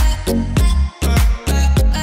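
Background music with a steady beat: deep, heavy bass drum hits about twice a second.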